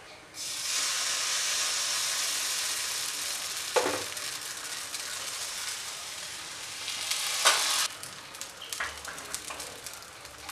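Appam batter of ground rice and tender coconut hitting a hot nonstick appam pan and sizzling, starting suddenly about half a second in, easing as the pan is swirled, and stopping near the end. Two knocks of the pan sound along the way.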